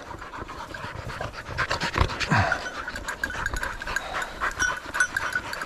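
A hunting dog panting close by, with a brief low thump about two seconds in.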